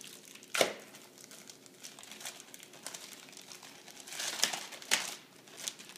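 Clear plastic packaging crinkling as it is handled and opened, in short irregular rustles, with one sharp crackle about half a second in and a cluster of crinkles around four to five seconds in.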